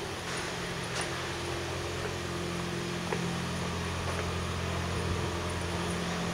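A steady low mechanical hum with faint ticks about once a second, the ticks fitting footsteps of someone walking.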